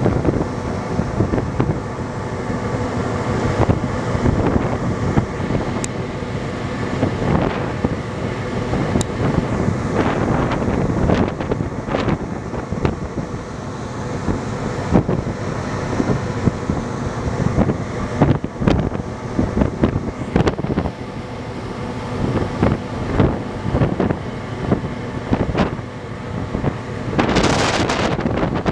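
Wind buffeting the microphone in irregular gusts over the steady hum of the Interislander ferry's engines. A stronger gust of hiss comes near the end.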